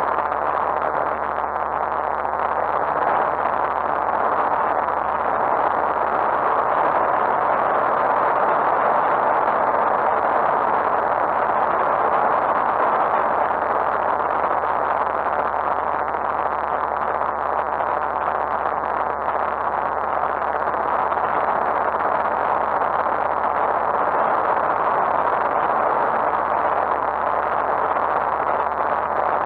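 Lightwing GR912 light aircraft's Rotax 912 four-cylinder engine and propeller at take-off power, heard inside the open-sided cockpit as a steady drone mixed with rushing wind, unchanged as the plane leaves the grass runway and climbs.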